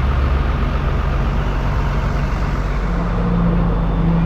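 A road vehicle's engine running steadily under road noise, its low note stepping up and growing stronger about three seconds in.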